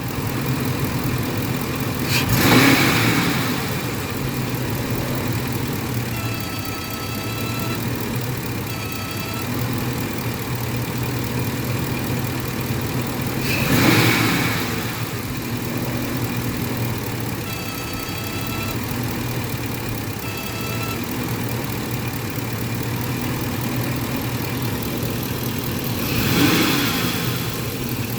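2003 Ford F-150's 5.4-litre V8 idling, blipped three times about twelve seconds apart. A few seconds after each of the first two blips a brief horn-like tone sounds twice: the noise typical of a failing idle air control valve, still there after the valve has been replaced.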